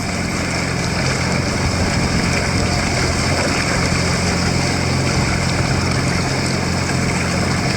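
Two-cylinder Yamato racing outboard engine running at a steady pitch.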